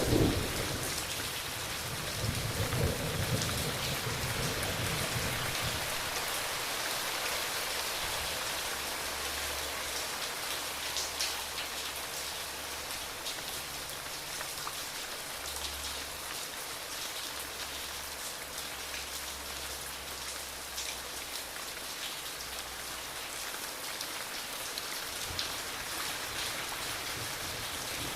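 Heavy rain falling steadily, a dense hiss of drops on surfaces, with a rumble of thunder in the first few seconds that dies away.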